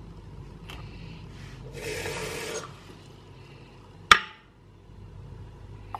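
Drinking glass knocked down once, sharply, onto the glass top of a kitchen scale about four seconds in, with a short clink. About two seconds in there is a second of rushing noise.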